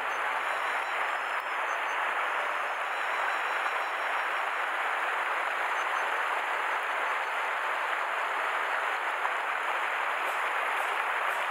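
Steady rush of river water over a riffle.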